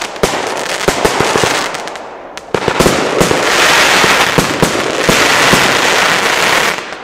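Norma Nico 'Power Unit' firework firing a string of aerial bursts: sharp shots and dense crackling stars. The crackle thins briefly about two seconds in, then comes back thick and loud before fading near the end.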